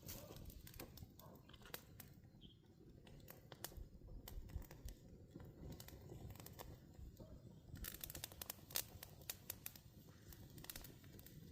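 Faint tearing and crumpling of dry material, with scattered sharp clicks and snaps at irregular intervals.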